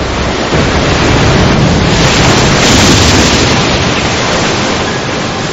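Wind rushing across a camcorder microphone with the sea behind it, a steady noise that swells to its loudest about halfway through and then eases.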